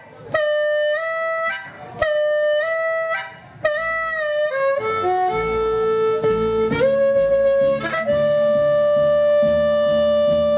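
Amplified blues harmonica played through a hand-held microphone, repeating a short riff with bent notes three times on its own. About halfway through, the band comes in with upright bass, drums and electric guitars, and the harmonica holds one long note near the end.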